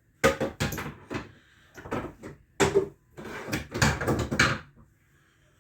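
Knocks and clatter of hard objects being handled, in three clusters: about a quarter second in, near the middle, and again from about three and a half to four and a half seconds.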